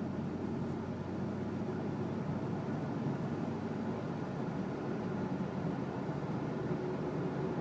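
2007 Dodge Dakota pickup running with a steady mechanical hum and a faint held tone in it: an odd noise from the truck that the owner cannot identify.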